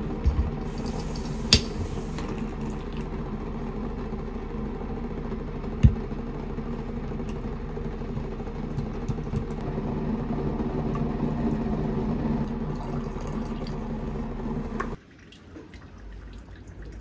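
Tea being made with a stainless-steel teapot: water pouring and the metal lid clinking, with a sharp click about a second and a half in and a knock near six seconds, over a steady hum. The hum cuts off about fifteen seconds in, leaving a much quieter background.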